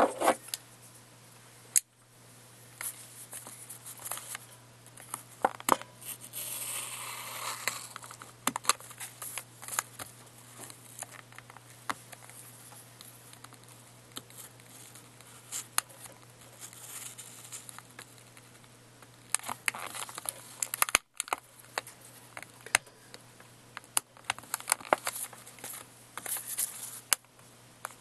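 Plastic retail packaging being handled and opened: crinkling and rustling with many scattered clicks and snaps, over a steady low hum.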